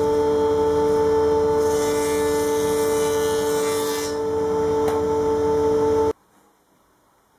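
Electric thickness planer running with a steady whine, its cutting noise growing louder and hissier for a couple of seconds as a wooden paddle blank passes through. The sound then cuts off suddenly to near quiet.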